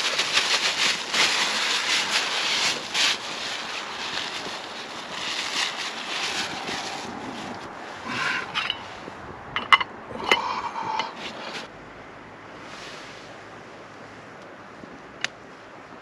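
Plastic bag crinkling and rustling as it is handled, loudest in the first few seconds and again around six seconds in. A few sharp clicks follow near ten seconds, then a quieter steady background with a single tick near the end.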